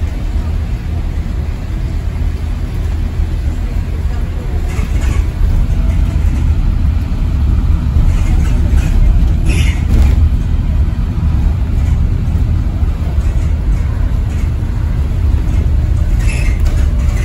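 Inside a moving ADL Enviro400EV battery-electric double-decker bus: a steady low rumble of tyres and road through the body, with a few brief clatters from the bus's fittings.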